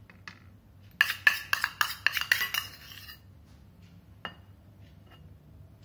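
Metal spoon clinking and scraping against a stainless steel bowl: a quick run of ringing clinks lasting about two seconds, then one more single clink a second later.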